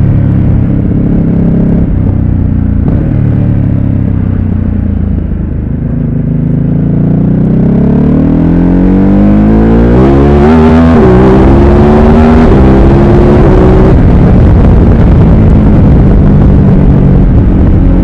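2017 Ducati Supersport S's 937 cc L-twin engine easing off and dropping in revs, then pulling hard from about six seconds in, with a quick upshift about eleven seconds in, then settling at steady revs. Heavy wind rush on the helmet microphone throughout.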